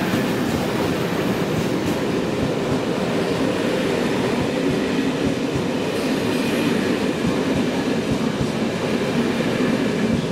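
A passenger train rolling past close by, its wheels rumbling steadily on the rails with some clacking.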